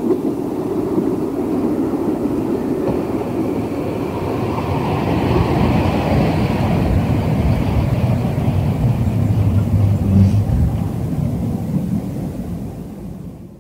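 Diesel railcar train running past on the rails, a steady rumble that grows louder toward about ten seconds in, where a low engine note comes through, then fades and cuts off.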